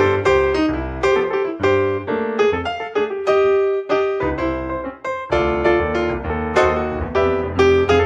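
Piano music: a melody of struck notes about twice a second over low bass notes.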